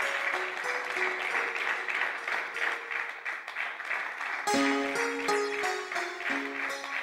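Audience applauding steadily, with a background score over it: soft held notes at first, then plucked string notes coming in about halfway through.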